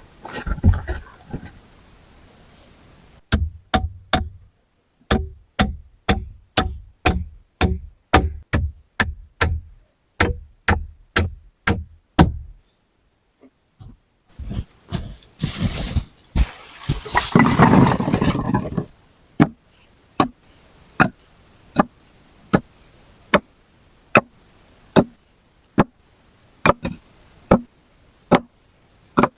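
A tool striking wood in a steady rhythm, sharp knocks about two a second. The strikes break off about halfway for a few seconds of rough scraping noise, then resume a little slower.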